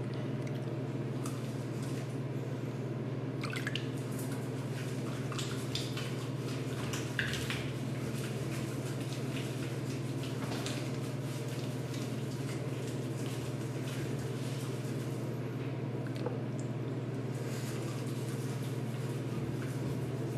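Shower water running and spattering on skin and the shower floor, with irregular drips and splashes and a steady low hum underneath.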